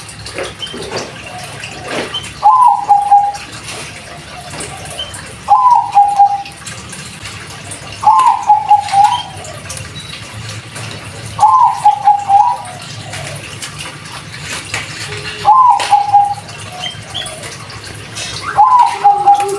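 Bangkok-type perkutut (zebra dove) cooing its song phrase six times, about every three seconds. Each phrase opens with a note that drops in pitch and runs into a quick string of rolling coos.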